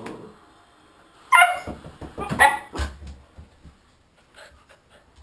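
A small dog barks twice, about a second apart, then a low thump follows and a few faint small knocks.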